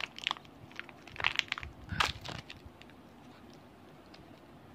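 Plastic packaging handled close by, crackling and crinkling in a string of sharp crackles that die away about halfway through.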